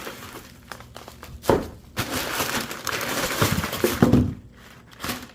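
A folded paper sheet crinkling as it is unfolded and handled, starting with a knock about a second and a half in and going on for about three seconds.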